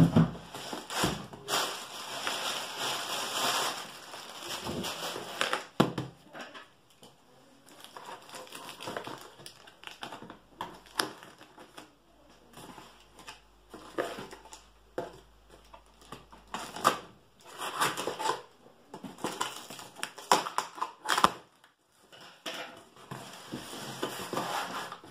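Taped cardboard box being opened by hand: irregular crackling, scraping and rustling of cardboard and packing tape, with scattered sharp knocks as the flaps are worked open.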